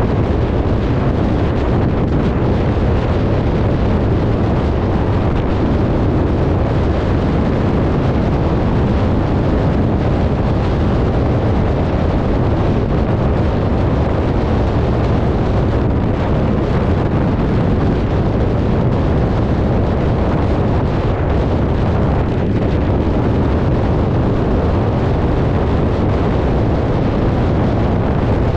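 Wind buffeting the microphone of a camera on a battery-powered vehicle ridden at high speed: a steady, loud rumble that is heaviest in the low end and never lets up.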